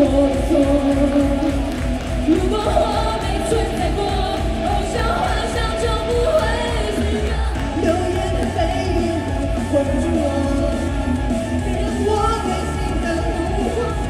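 Live pop song over a PA: singing over loud amplified music with a steady bass.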